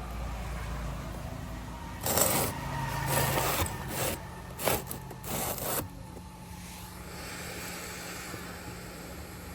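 Rough scraping in about six short strokes between about two and six seconds in, over a steady low hum.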